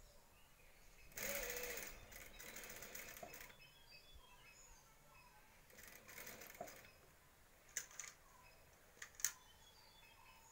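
Industrial single-needle sewing machine stitching in two short runs: one starting about a second in and lasting about two seconds, and a shorter one around six seconds in. A few sharp clicks follow.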